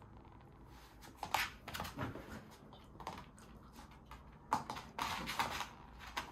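Toy poodle moving about, its claws clicking and scratching on a laminate floor and fabric cushion, in two short flurries.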